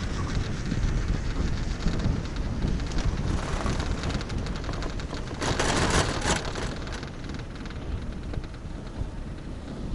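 Wind buffeting and low rumble heard while riding a Taihei Sakudo high-speed quad chairlift, with a louder rushing swell a little past halfway.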